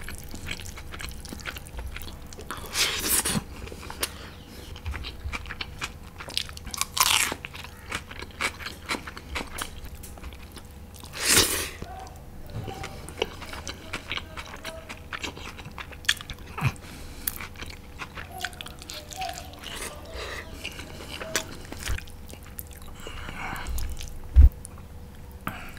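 Close-miked chewing and biting of meat curry: many small wet mouth clicks and smacks, a few louder noisy bursts, and a sharp thump near the end, over a faint steady hum.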